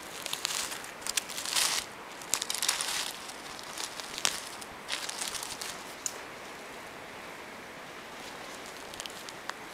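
A hand scraping and brushing through forest-floor litter of dry leaves, needles and soil around a mushroom: a run of rustling and crackling with sharp ticks over the first six seconds. After that only a steady hiss, with a few faint ticks near the end.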